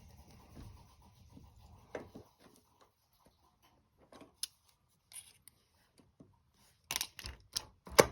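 Scattered small clicks, taps and rubbing from parts and tools being handled, with a few sharper metallic knocks about seven and eight seconds in, the last the loudest.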